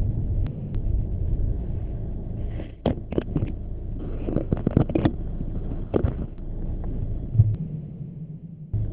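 Inside a car: a steady low rumble from the car, with scattered sharp taps of large raindrops striking the windscreen and body, clustered from about three seconds in for a few seconds.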